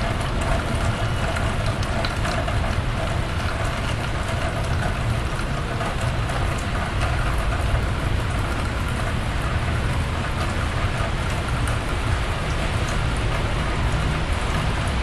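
Blizzard wind buffeting the microphone, a steady low rumble under a rushing hiss, with fine ticks of wind-driven snow.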